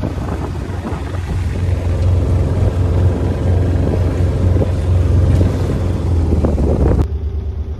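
A sailboat's engine runs steadily as the boat motors along, a constant low rumble, with wind buffeting the microphone. The sound changes abruptly near the end.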